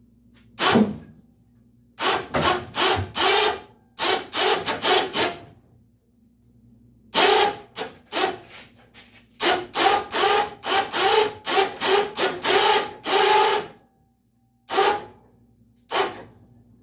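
Hand winch cranked in repeated short strokes under load, a rasping metal ratcheting with a squealing creak in each stroke, as its cable hauls a 1951 Chevy pickup cab over. The strokes come in bunches with pauses, a long steady run in the middle and two single strokes near the end.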